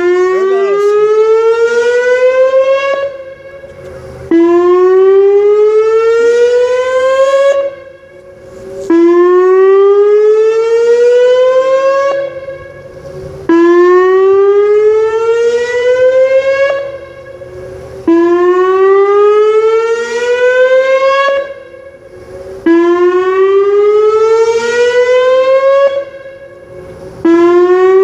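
Whelen WPS 2909 electronic outdoor warning siren sounding a weekly test: a loud, rising tone that climbs over about three seconds, breaks off briefly and starts again, repeating about every four and a half seconds.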